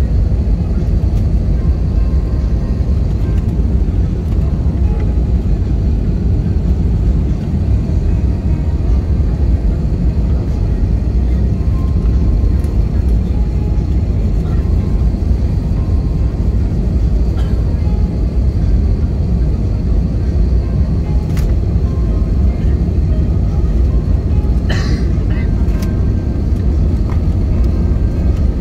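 Jet airliner cabin noise on final approach: a steady, loud, low-pitched rush of engines and airflow. A brief sharp clatter sounds near the end.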